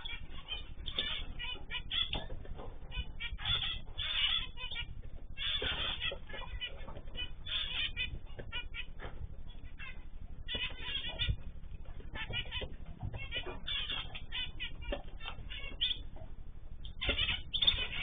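Aviary of small cage birds chirping and calling: many short, rapid calls overlapping, over a steady low rumble.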